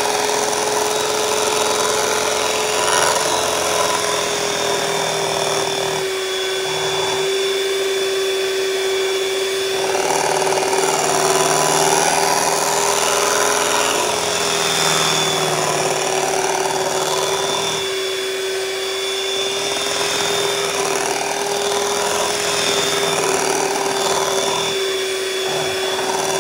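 Electric hand mixer running on high with a steady motor whine, its beaters churning a thick, lumpy ube cream-cheese batter in a glass bowl to beat out the lumps.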